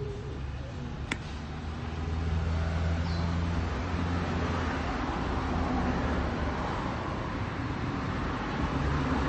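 Steady low drone of a running vehicle engine, louder from about two seconds in, with one sharp click about a second in.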